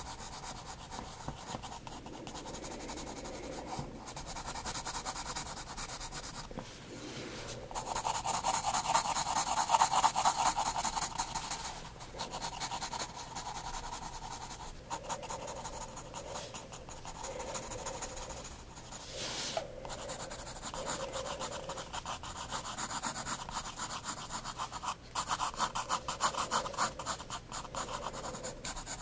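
Soft 9B graphite pencil scratching and rubbing on sketchbook paper in quick back-and-forth shading strokes, with louder, denser spells of shading about a third of the way in and near the end.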